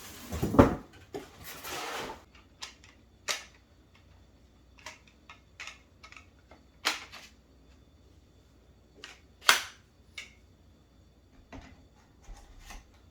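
Hard plastic parts of a new carpet cleaner being handled and snapped together: a knock and rustle at the start, then single sharp clicks and taps every second or few.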